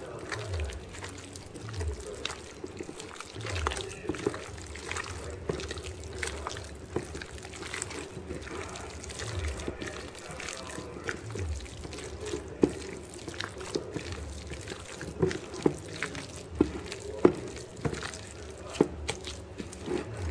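A hand in a plastic glove squishing and tossing chicken pieces in a wet egg-and-cornstarch marinade in a glass bowl. It makes irregular wet squelches and small clicks, with a few sharper ones in the second half.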